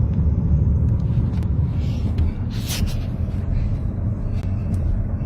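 Hailstorm: a heavy, steady rumble with scattered sharp knocks of hailstones striking, one louder strike between two and three seconds in.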